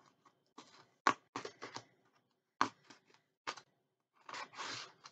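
A cardboard subscription box being opened and its packaging handled: a string of short scrapes and taps, the loudest about a second in, then a longer rustle about four seconds in.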